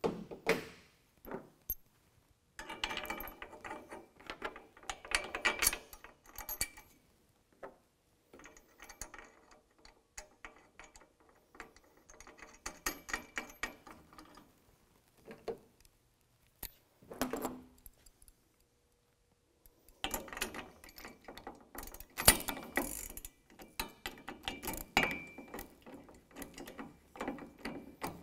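Hand ratchet clicking in several bursts with short pauses as the bolts on a steel truck-bed rack bracket are run in and tightened.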